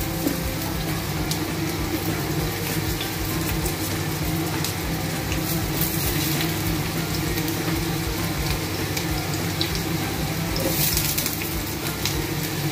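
Potato chunks sizzling in shallow oil in a nonstick frying pan: a steady, crackling sizzle that swells briefly near the end.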